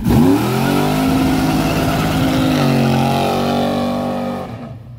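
Car engine revving hard, its pitch sweeping up quickly and then held at high revs, with a shift in pitch about halfway through. It fades away near the end.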